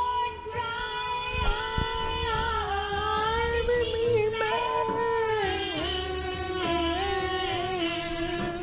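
Music: a high singing voice holding long, gliding notes over a steady bass line.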